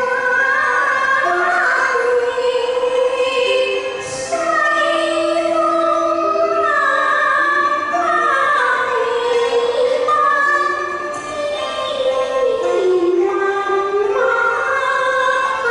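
A woman singing a slow Cantonese opera-style song into a microphone over instrumental accompaniment, holding long notes that slide between pitches.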